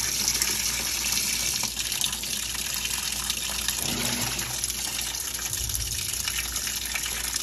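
Water gushing steadily from the inlet into the tub of a Whirlpool top-load washer as it fills at the start of a wash cycle, on a test run after repair.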